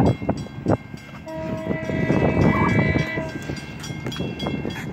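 Horn of an approaching vintage trolley car sounding once for about two seconds, a steady chord of several notes, after a few sharp knocks in the first second.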